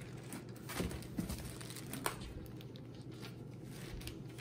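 Packaging rustling and crinkling, with a few light clicks, as a gift is handled and pulled out of a box.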